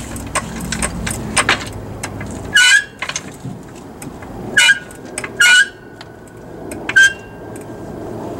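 Hydraulic floor jack being pumped up: a run of small metallic clicks, then four louder metal clanks, each with a short ringing squeak, one to two seconds apart. The one near the middle rings on for about a second.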